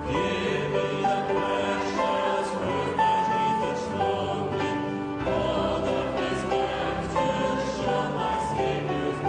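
A choir singing a sacred choral piece, with long held chords that move from note to note.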